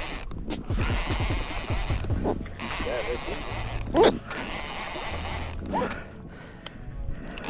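Fishing reel ratcheting and clicking as line is worked on a hooked fish, with a steady hiss of wind and water over it and a few brief gliding squeaks.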